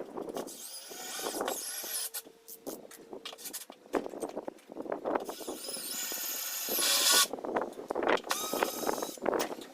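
A run of short clicks and knocks, like things being handled and worked on, with a loud hissing, whirring noise for about two seconds past the middle.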